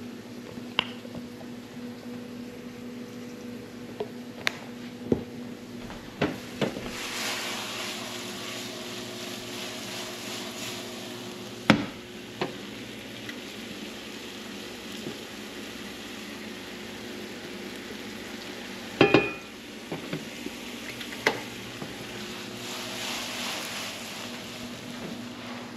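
Small diced cubes sizzling in a nonstick frying pan, with the sizzle swelling twice. Sharp knocks and a brief clatter of the pan and utensils come in between, over a steady hum.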